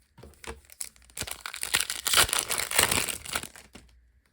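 Foil trading-card pack wrapper crinkling and tearing as it is ripped open, a dense crackle lasting about two and a half seconds after a few light clicks.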